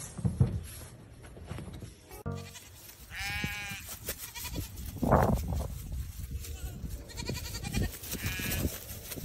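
Two bleating animal calls about five seconds apart, each a short wavering cry.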